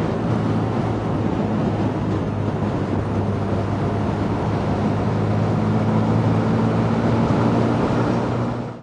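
Honda CB150R's single-cylinder four-stroke engine running at a steady cruise with a constant low hum, mixed with wind and road noise, cutting off suddenly at the end.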